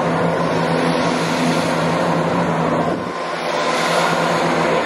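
Chiltern Railways Class 168 diesel multiple unit moving past along the platform: its underfloor diesel engines hum steadily over wheel and rail noise. The sound dips briefly about three seconds in.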